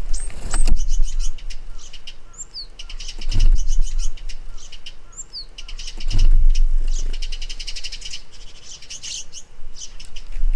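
Wild birds chirping in quick high runs, with a short falling whistle twice, over a low rumble that swells twice.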